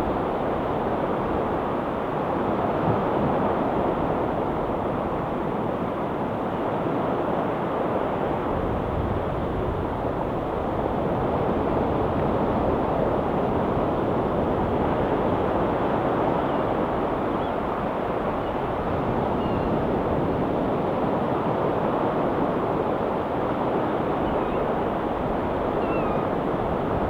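Ocean surf washing steadily against the shore, a continuous rushing wash without breaks. A few faint, short high calls show up in the second half.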